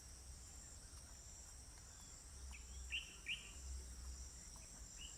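Steady high-pitched insect chorus with a low rumble underneath, and four short bird chirps between about halfway and near the end.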